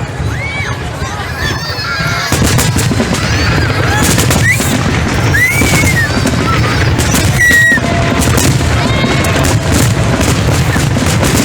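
Fireworks display: many sharp bangs and crackles over a steady low rumble, with short whistling glides from whistling fireworks throughout.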